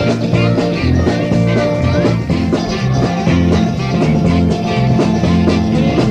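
Up-tempo dance-band music, a Charleston tune: bass and drums keeping a steady beat under guitar and other instruments.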